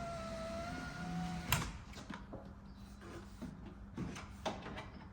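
Power window motor in the door running steadily with a whine as the glass goes up, stopping with a knock about a second and a half in. Then scattered light clicks and knocks.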